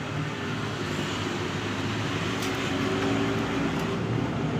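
Steady running of a vehicle engine, an even rumble with a low hum; a higher hum comes in about halfway through.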